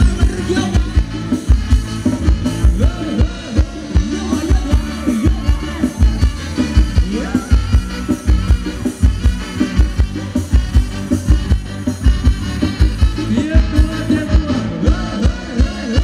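Live band playing upbeat Thai ramwong dance music, with a steady, driving drum beat and a singer.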